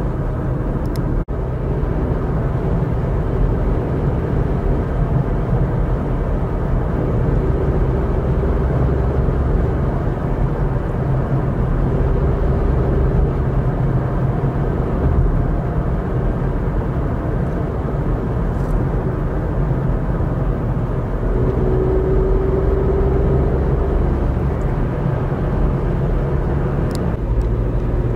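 Steady rumble of a car driving on an asphalt road, engine and tyre noise heard from inside the cabin.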